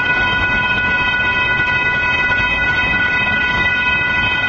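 Railroad crossing warning signal sounding a steady, unbroken multi-tone ring over the low rumble of a passing freight train.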